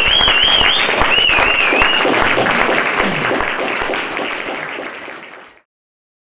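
Audience applauding, with a high warbling whistle over the clapping in the first two seconds. The applause fades out and cuts off about five and a half seconds in.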